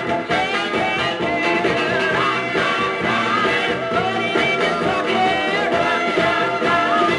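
A vocal-group rock and roll record playing from a 45 rpm vinyl single on a turntable: sung vocals over the backing band, steady and continuous.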